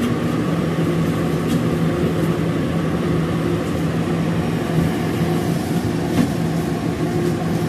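Walk-in freezer's evaporator unit running with a steady mechanical hum, the refrigeration system working and cooling down again. There are a couple of light taps, one about a second and a half in and another about six seconds in.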